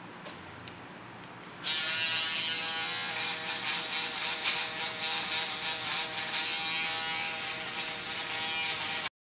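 A small handheld Andis electric hair cutter switches on about a second and a half in and runs with a steady buzz while cutting short hair. The sound cuts off suddenly just before the end.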